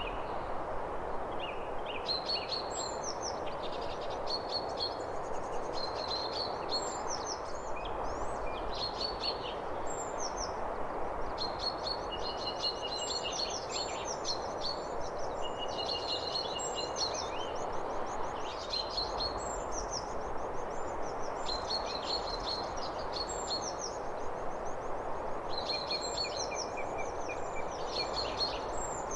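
Songbirds chirping and trilling in short repeated phrases over a steady background rush.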